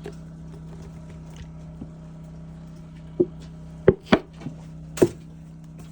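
A handful of sharp knocks and clicks, about five in two seconds starting around three seconds in, over a steady low hum.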